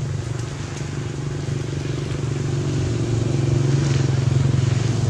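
A motor engine running with a steady low hum, growing louder about three seconds in.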